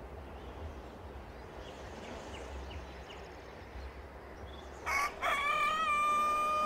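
A low rumble, then about five seconds in a rooster crows once: a short note followed by a long held call that rises, holds and dips at the end.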